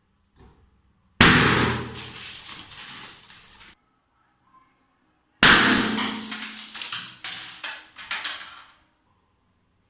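Two loud balloon bursts about four seconds apart, each starting suddenly and trailing off over two to three seconds with rattling and crackling; the second tail is full of quick sharp clicks.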